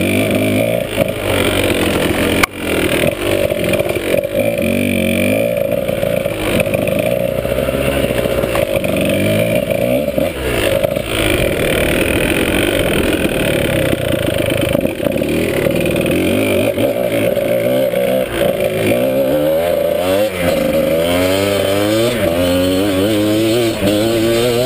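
Dirt bike engine revving up and down as it is ridden over a rough trail, with a sharp knock about two and a half seconds in. Near the end the engine climbs in pitch in repeated pulls as it accelerates.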